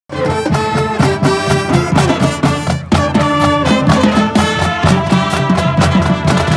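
Brass band music with a steady drum beat, starting abruptly and fading near the end.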